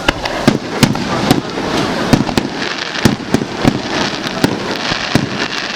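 Fireworks display: aerial shells bursting in quick, irregular succession, several sharp bangs a second over a continuous crackle, echoing off the surrounding mountains.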